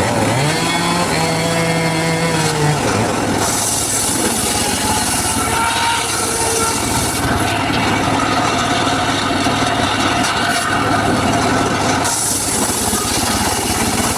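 Homemade circular saw running and ripping through teak wood. The saw hums steadily, and a hissing, rasping cut runs from about three and a half seconds in until about twelve seconds in.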